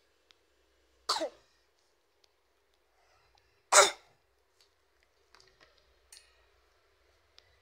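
A person coughing twice, once about a second in and again, louder, just before four seconds, with a few faint clicks in between.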